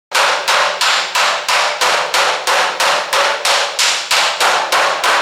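Body hammer tapping dents out of a car hood's sheet metal against a dolly: a steady run of sharp ringing metal strikes, about three a second, starting suddenly just after the start.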